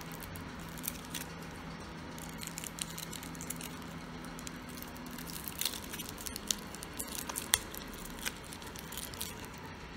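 Fingers working open the clear plastic blister pack of a microSD card: scattered, irregular crinkles and small clicks of the plastic, with a sharper click a little past halfway.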